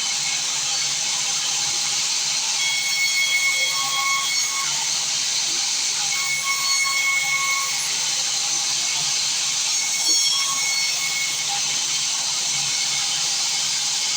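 Sawmill saw cutting wood: a steady high hiss, with a pitched whine that rises out of it and fades a few times.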